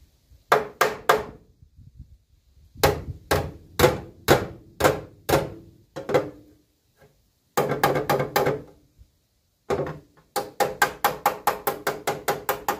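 Hammer striking the rusted sheet-metal edge of a car's wheel arch: sharp ringing metallic blows in four runs, the last run the fastest, at about five blows a second.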